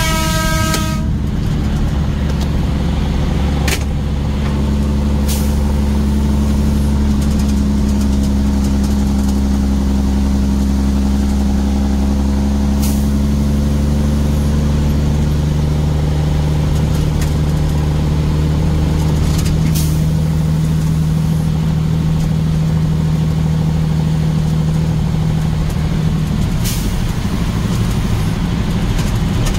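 Motor vehicle engine running steadily as it drives, its pitch slowly shifting. A short horn toot sounds at the start, and a few sharp knocks come through at scattered moments.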